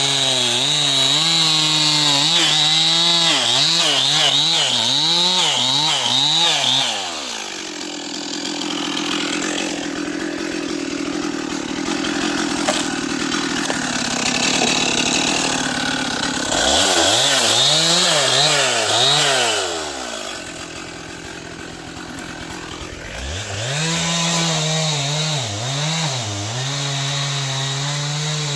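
Two-stroke Stihl chainsaw engine revving up and down repeatedly, with long steadier, quieter stretches in between where it runs under load, as when the chain is cutting into wood.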